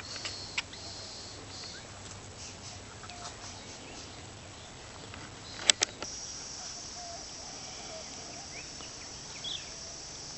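Quiet forest ambience with a few faint, short bird calls. A pair of sharp clicks comes just before the middle, and right after them a steady high-pitched insect drone sets in.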